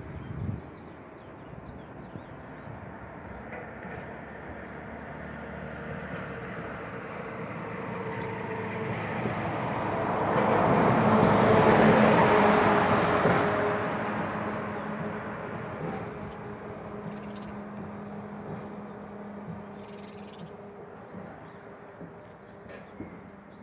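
A vehicle passing by, swelling slowly to a peak about halfway through and then fading away, with its pitch dropping slightly as it goes past.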